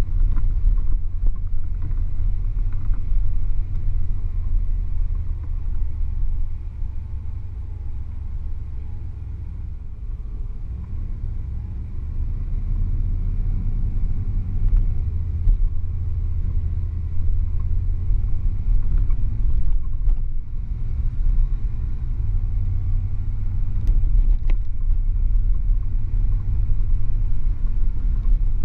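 Car's engine and road noise heard from inside the cabin while driving: a steady low rumble that eases off for a few seconds around the middle and then picks up again.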